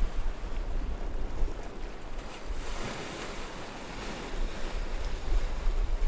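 Ocean waves washing and breaking on choppy open sea, with wind rumbling on the microphone. The hiss of the water swells as a wave breaks about halfway through, while the wind rumble eases, then grows again near the end.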